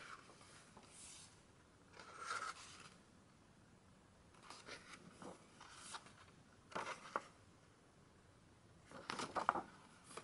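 Pages of a large photobook being turned by hand: several short, quiet paper swishes and rustles, the loudest near the end.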